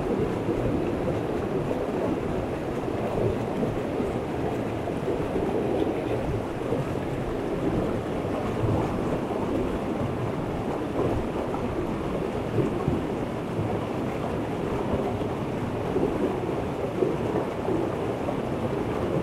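Steady rush of a river's flowing water, an even noise with no break.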